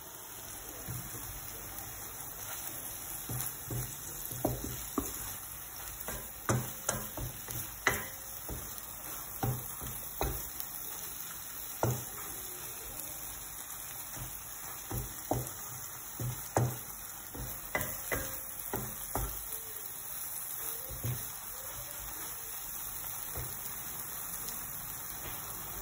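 Eggs with mushrooms, tomatoes and ham sizzling in a frying pan, while a wooden spatula stirs and scrapes them, knocking against the pan at irregular intervals. The knocking stops about twenty seconds in, leaving the steady sizzle.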